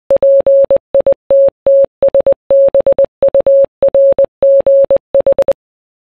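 Morse code beeps in a single steady mid-pitched tone, keyed in quick dots and dashes that spell out PITTSBURGH (.--. .. - - ... -... ..- .-. --. ....) and stopping about half a second before the end.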